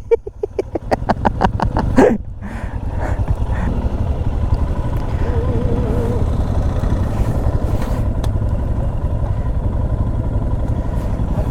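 Royal Enfield Himalayan's single-cylinder engine chugging in quick, even pulses for about two seconds, then running steadily, with the motorcycle stuck.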